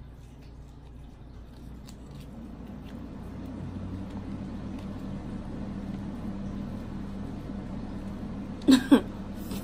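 Crab leg shell being picked apart by hand, giving a few faint clicks and cracks over a low steady hum that swells a few seconds in. Near the end comes a short vocal exclamation that falls steeply in pitch, the loudest sound.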